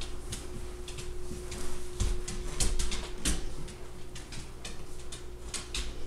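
Handling and movement noise: irregular light clicks and knocks over a low rumble, with a faint steady hum that stops near the end.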